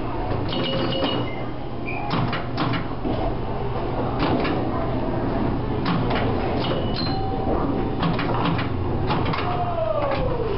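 Electromechanical pinball machine clicking and clacking: its relays and score mechanism fire in short clusters of sharp clicks every second or two, over a steady low hum.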